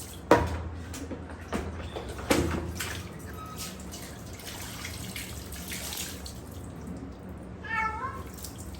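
A British Shorthair cat meows once near the end, a short call that rises and falls, over the sound of bath water. Two sharp knocks come in the first few seconds.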